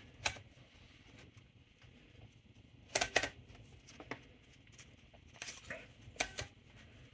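A few scattered sharp clicks and rattles from a Royal Deluxe manual typewriter's mechanism as a sheet of paper is fed in, with short stretches of quiet between them.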